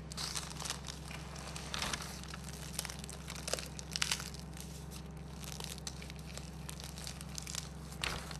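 Crisp, flaky crust of a baked yeast-free layered saya çöreği crackling and crunching as hands squeeze and press it, a run of irregular crackles with a few louder snaps.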